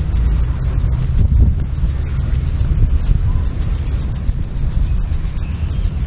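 An insect calling in rapid, even high-pitched pulses, about nine a second, with a short break a little past halfway. Under it runs a steady low rumble.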